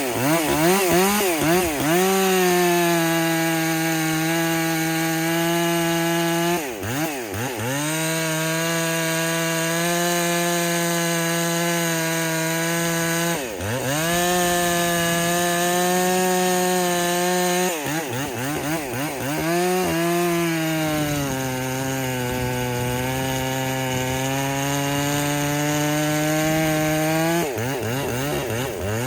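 Husqvarna 257 two-stroke chainsaw, its ignition timing advanced about 10 degrees, cutting firewood at full throttle with a 24-inch bar. It makes four cuts, each holding a steady high pitch for several seconds, with a brief wavering rev between cuts. In the last cut the engine pulls down in pitch and slowly recovers.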